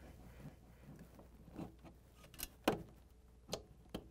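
Needle-nose pliers working the wire retainer spring on a refrigerator compressor's start device: a few faint metallic clicks and taps, the sharpest about two-thirds of the way in.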